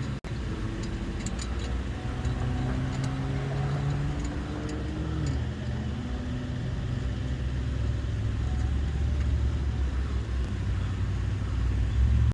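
Motor vehicle engine running with road rumble: a steady low hum whose pitch steps down about five seconds in, then grows louder toward the end.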